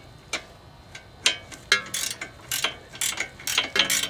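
Ratchet wrench with a 19 mm socket tightening the outer tie rod end's nut, its pawl clicking in short irregular runs of strokes.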